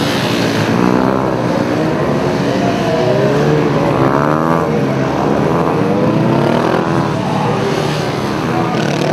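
Honda CB250R's single-cylinder engine revving up and down in quick repeated bursts of throttle as the motorcycle swings through tight turns around cones.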